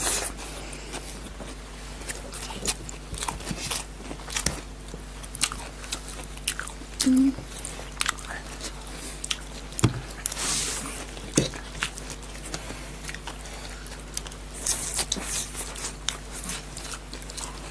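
Close-miked eating of chow mein noodles and sausage: chewing and slurping, with scattered sharp clicks of forks against plates.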